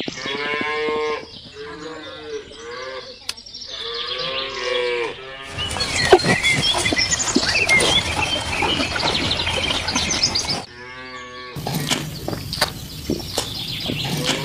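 Cattle mooing: several drawn-out moos in the first five seconds and one more about eleven seconds in, with stretches of noisier sound between them.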